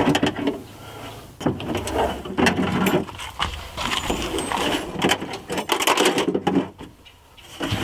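Irregular clicking, scraping and rattling of a car door's latch linkage rods and latch assembly being handled inside the door shell while the rods are worked into line to snap onto the latch.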